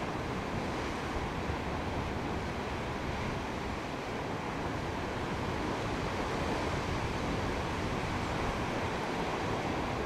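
Ocean surf washing steadily against the sea cliffs, mixed with wind rumbling on the microphone.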